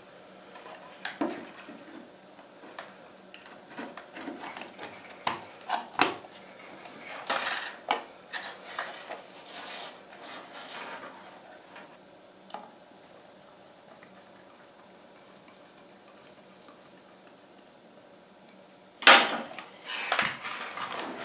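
Small clicks, taps and knocks of a plastic outlet cover plate being handled and fitted onto a blue plastic electrical box. It goes quiet for a while, then there is a louder burst of clattering near the end.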